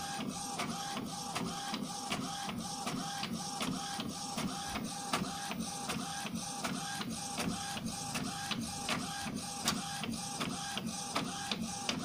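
Epson XP-2105 inkjet printer printing a photo: the print-head carriage shuttles back and forth with a regular click about three times a second, each pass carrying a short pulsing motor whine as the page feeds out.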